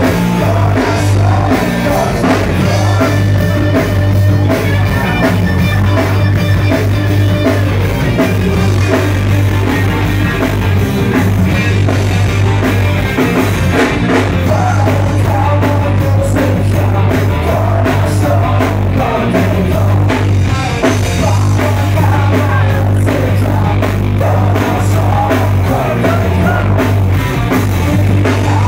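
Live rock band playing: a singer over electric guitars, bass and a drum kit, loud and continuous.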